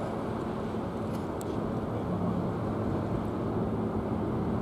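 Red Funnel car ferry's diesel engines running as the ship moves slowly across the harbour: a steady low rumble with a faint steady drone that grows a little stronger about halfway through.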